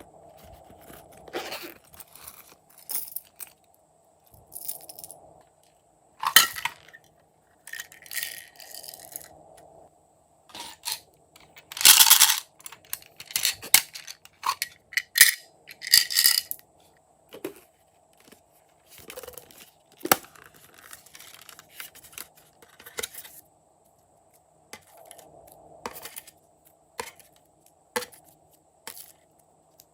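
Slime being worked by hand, kneaded and stretched, giving irregular sticky pops, clicks and crackles, with denser crackling bursts now and then.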